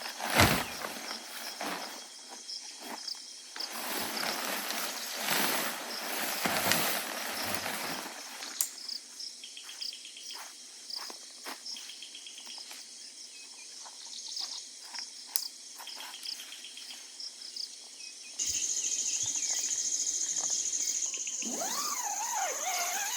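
Insects chirping in rapid pulses at dusk in the forest. A steady high-pitched insect trill sets in suddenly late on. Rustling and scraping sounds of handling dominate the first third.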